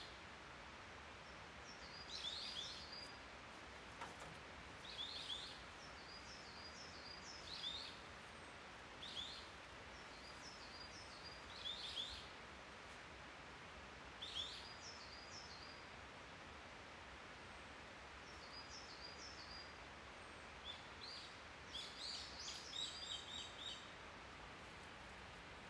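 A songbird singing short, high phrases about every two to three seconds, over a steady faint hiss of forest ambience. Near the end a second bird joins with a quick run of repeated notes.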